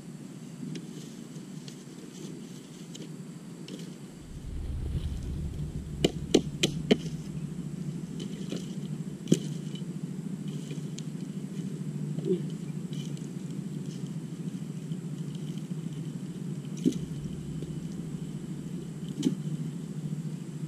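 Small open fire of dry bamboo and sticks burning, with a steady low rumble. Sharp cracks and pops from the burning wood: three close together about six seconds in, then single ones every few seconds.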